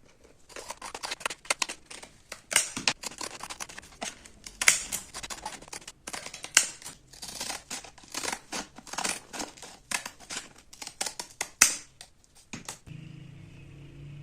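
Rapid, irregular hand-worked scraping or snipping strokes, several a second, sharp and gritty. They stop near the end, where a steady low hum begins.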